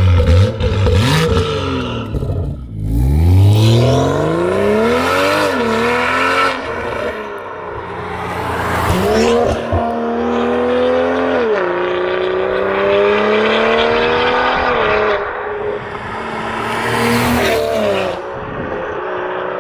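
BMW M240i's turbocharged inline-six through a G-Power Deeptone stainless-steel exhaust, accelerating hard. Its note climbs and drops again and again through several upshifts, with sharp crackles in the first couple of seconds.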